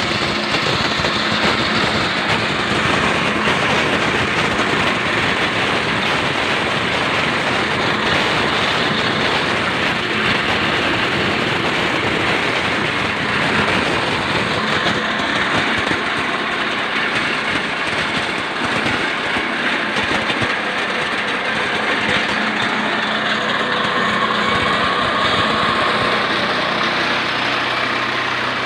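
Areca nut splitting machine running steadily, its motor droning under a constant dense rattle.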